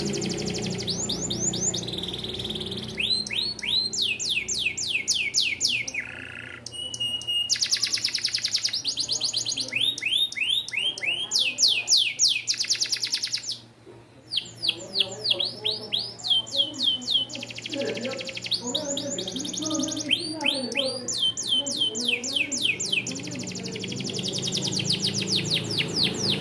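Domestic canary singing: long, fast trilled phrases of rapidly repeated swept notes, broken by a short pause about halfway through.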